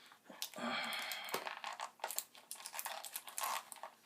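Plastic packaging crinkling and tearing as it is cut open with a knife, an irregular run of crackles and scrapes.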